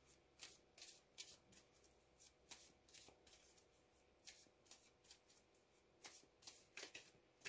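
A tarot deck being shuffled by hand: a faint, irregular run of short card flicks and taps.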